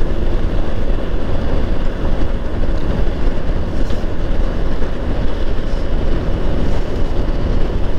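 Motorcycle on the move, heard through a helmet-mounted camera microphone: steady engine, wind and road noise with a strong low rumble.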